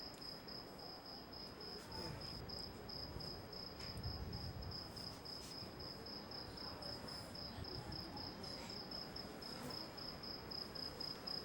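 A cricket chirping in a rapid, even pulse at one high pitch, over a low background rumble and hiss.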